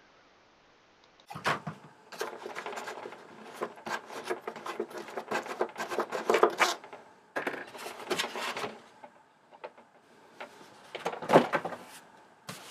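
A foam model aircraft wing being freed from its fixing and lifted off the foam fuselage: a long run of scraping, rubbing and clicking, then a lull and one louder knock and rub near the end.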